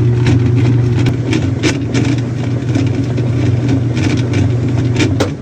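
Whirlpool top-load washing machine running, its motor and transmission giving a steady low hum with scattered light clicks as the agitator oscillates. The transmission's pinion gear has been replaced, and the machine is agitating normally again.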